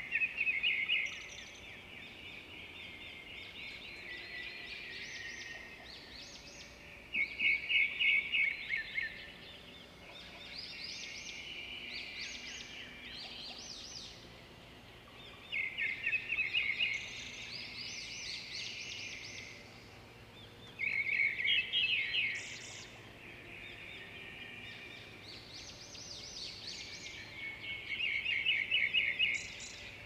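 Small songbird singing: continuous soft high twittering, broken by loud rapid trills that come five times, roughly every six to seven seconds.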